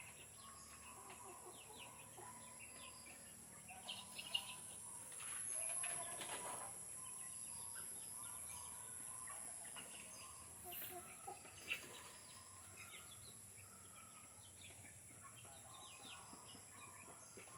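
Backyard chickens, Rhode Island Reds and native hens, clucking faintly and sporadically, with a louder brief rustling noise about five seconds in and a steady high hiss.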